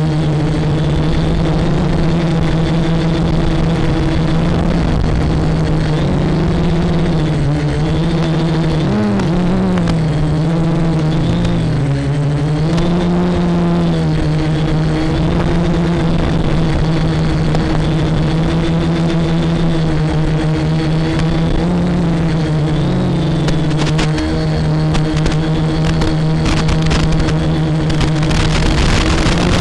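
Quadcopter electric motors and propellers whining steadily in flight, the pitch dipping and rising briefly every few seconds with throttle changes. Crackling clicks join in over the last few seconds.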